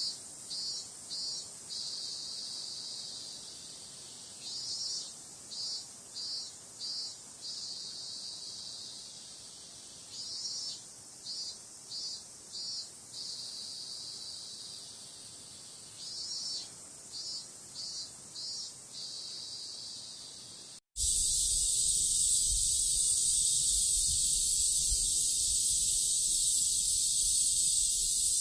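Cicadas singing. First, one cicada repeats a song phrase about every five to six seconds: a run of four or five short pulsing calls, then a drawn-out high buzz. About 21 seconds in, this cuts to a louder, unbroken high buzz of cicadas over a low rumble.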